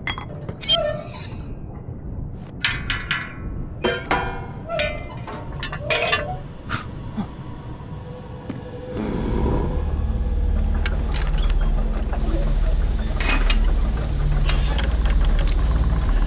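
Porcelain teacup and saucer clinking, with small clicks and taps. About nine seconds in, a low steady rumble starts, with music under it.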